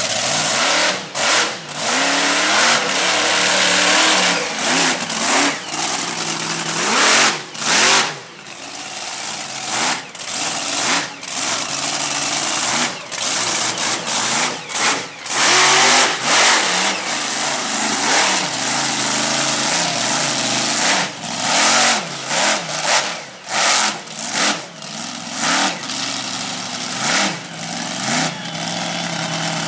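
Monster truck engine revving hard again and again, its pitch rising and falling, with frequent brief drops in level between bursts of throttle as the truck drives on the dirt.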